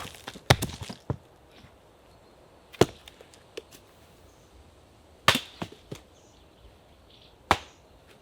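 Axe chopping wood: four sharp strikes about two and a half seconds apart, some followed by a few lighter knocks as pieces split and fall.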